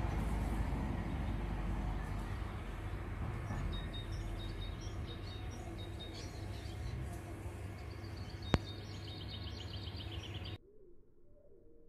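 Garden ambience with a low steady rumble, and small birds chirping in quick high repeated notes and a fast trill from about a third of the way in. A single sharp click comes near the end, and shortly after, the sound drops away abruptly to a much quieter background.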